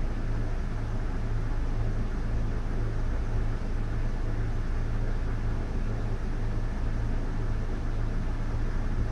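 Air conditioner running: a steady low hum under an even rushing noise of moving air.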